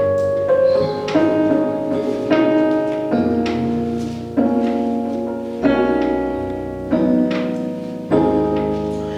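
Keyboard playing slow sustained chords, a new chord struck about every second and a bit, each ringing on and fading until the next.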